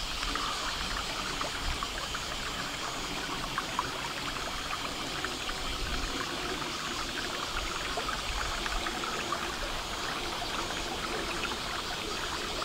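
Steady outdoor ambience: a continuous rushing hiss with fine crackles and some uneven low rumble, like water trickling along with wind on the microphone.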